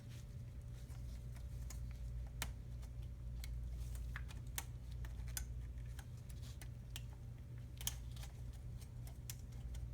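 Scattered light clicks and taps of a car navigation unit's plastic casing and parts being handled and pried apart, at irregular intervals over a steady low hum.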